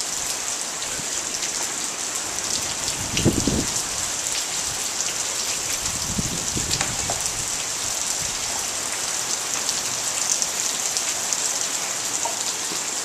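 Heavy rain pouring down steadily, an even hiss of drops hitting the ground. About three seconds in there is a brief louder knock.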